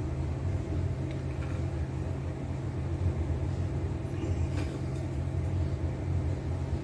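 Steady low background rumble, with a few faint light clicks of dry rusks being laid into a dish about a second in and again around four to five seconds in.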